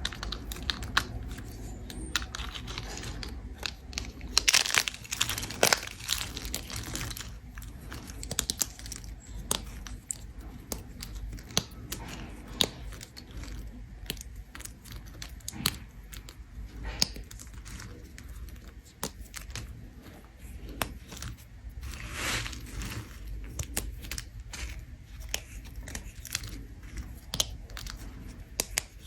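A bar of soap scraped with a blade: crisp, irregular scraping strokes with crunching and crackling as shavings break away, a few strokes louder than the rest.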